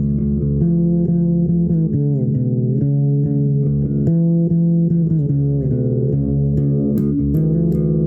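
Improvised instrumental music on a plucked string instrument, with low sustained notes and slow slides between pitches.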